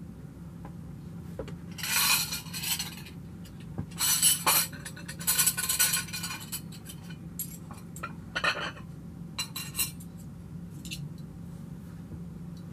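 Cake being served from a clear plastic clamshell container onto plates: several short bursts of crinkling and scraping as the container and plates are handled, with light clinks of a fork.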